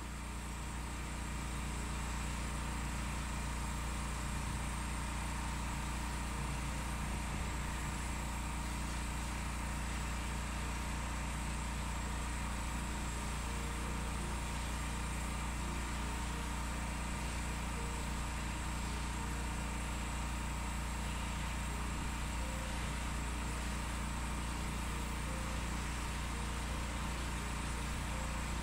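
Pressure washer's engine running at a steady drone, swelling up over the first second or two and then holding an even pitch.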